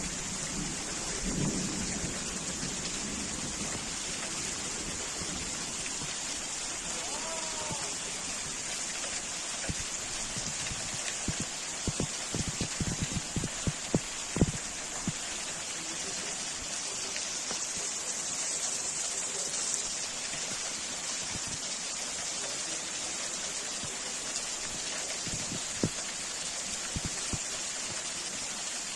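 Heavy downpour of rain hissing steadily, with a run of sharp close taps about halfway through.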